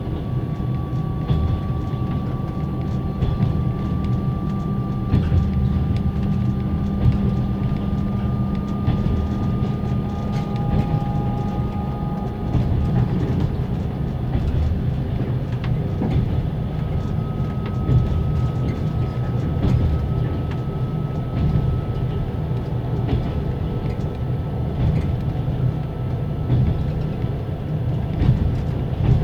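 Passenger railway car's generator whining, its pitch rising slowly as the train gathers speed. Under it run the low rumble of the running gear and the clack of the wheels over rail joints, heard from inside a closed compartment.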